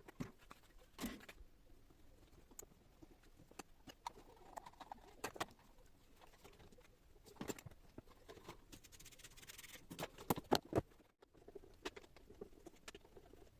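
Faint, scattered clicks, knocks and light scraping of plastic casing parts and screws being handled as a turbo fan is taken apart to get at its motor.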